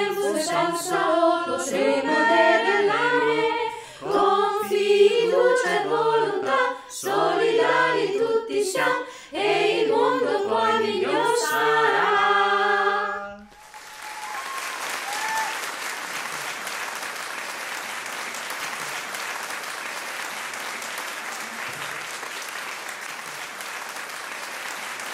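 Small mixed choir singing in Italian, a cappella, ending on a held chord that cuts off suddenly about halfway through. Steady applause follows and lasts to the end.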